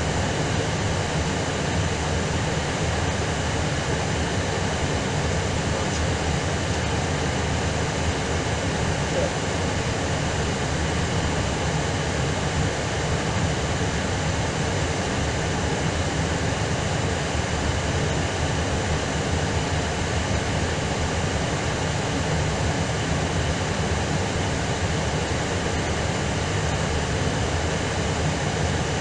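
Steady rumble and hiss inside an Airbus A320's cabin as it taxis with its engines at idle.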